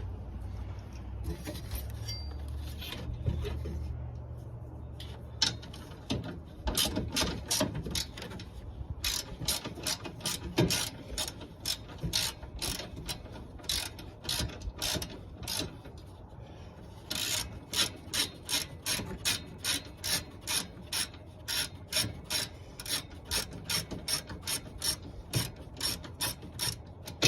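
Hand ratchet wrench clicking in long runs, about two clicks a second, as a bolt is backed out.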